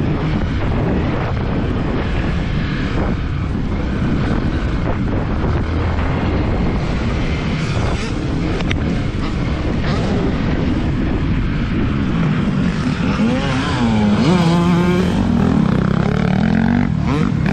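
Yamaha WR155R's single-cylinder four-stroke engine being ridden on a motocross track, running under load throughout. In the second half the revs drop and climb again several times as the throttle is rolled off and back on.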